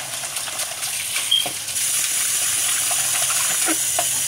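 Kitchen tap running as a cereal bowl is rinsed out, the water hiss growing louder about two seconds in, with a few light knocks of the bowl.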